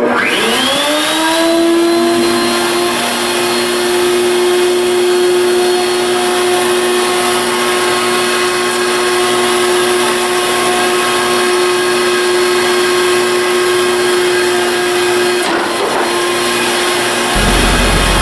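Table-mounted router starting up: its motor whine climbs to full speed within about a second, then runs steadily. A brief knock comes about fifteen seconds in, and near the end a deeper rumble joins in.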